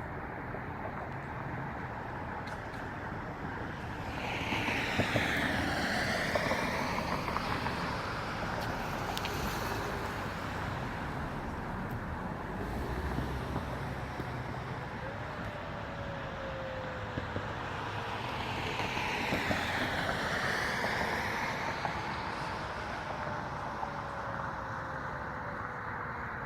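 Street traffic: two vehicles drive past, their tyre and engine noise swelling and fading about five seconds in and again about twenty seconds in. From the middle onward a faint tone falls slowly in pitch.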